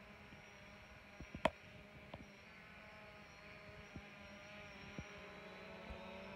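Faint whine of a DJI Phantom 4 quadcopter's propellers in flight, a cluster of close pitches that drift slightly and grow louder toward the end as it comes nearer. A few sharp clicks are heard; the loudest comes about one and a half seconds in.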